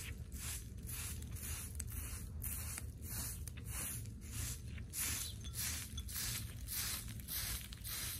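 Short straw hand broom sweeping dry dirt ground: scratchy swishes in a steady rhythm of about two to three strokes a second.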